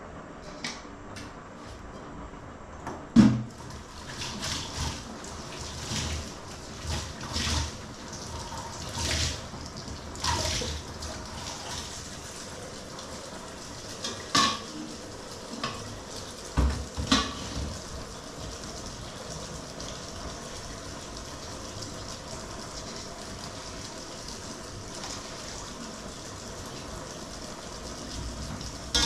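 Water splashing and sloshing, with scattered knocks of a pot or dish, as food is washed by hand in water. A sharp knock about three seconds in is the loudest sound. The splashing stops after about seventeen seconds, leaving a steady hiss.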